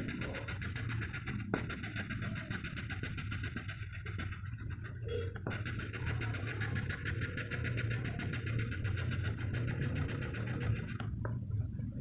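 Graphite pencil shading on paper in rapid scratchy strokes, pausing briefly about four seconds in and again near the end, over a steady low hum, with a few sharp taps.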